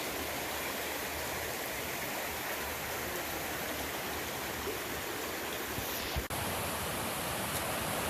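Steady rushing of river water over rocks, an even hiss. There is a brief knock about six seconds in.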